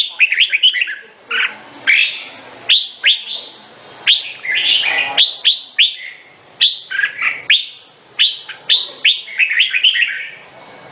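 Red-whiskered bulbul singing: short, loud phrases of quick falling notes, repeated every second or so.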